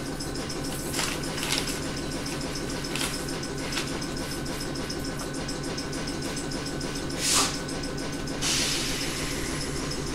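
AK-2 reciprocating air compressor of an Ohmi Railway 800-series electric train, running with a steady rhythmic clatter beneath the floor while the train stands. A few light clicks, and a burst of air hiss about eight seconds in that fades away.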